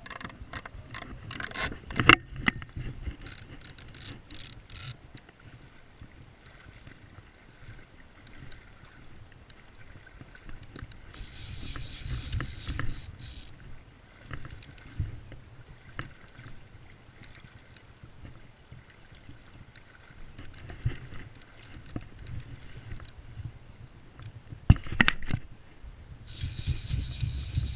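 Click-and-pawl fly reel ratcheting in bursts as line runs off and is wound back, with sharp knocks from handling the rod and reel.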